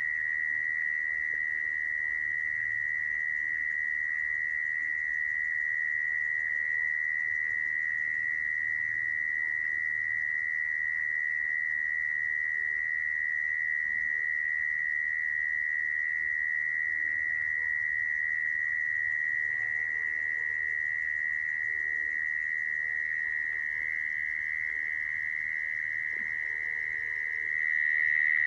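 Mole cricket calling song used as a lure for trapping: one continuous, steady, high-pitched trill that gets a little louder near the end.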